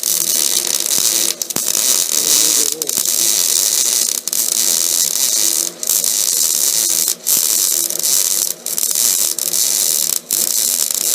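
MIG welding arc crackling and hissing steadily as a bead is run, breaking off briefly about every one and a half seconds.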